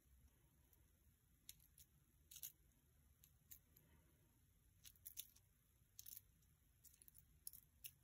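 A dozen or so faint, irregular metallic clicks and scrapes of a steel warded pick being worked in the keyway of a Master Lock 105D warded padlock.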